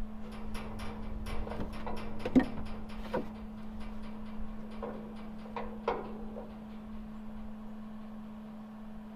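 A quick run of light clicks and knocks, then a few more about five and six seconds in, from a steel bracket and welding gear being handled and fitted against a truck rack, over a steady low hum.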